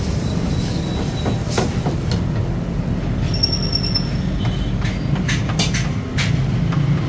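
Commercial gas wok burner running with a steady low rush, while a steel ladle scrapes and clicks against the wok as creamy pasta is stirred. A brief high metallic squeal comes about three and a half seconds in.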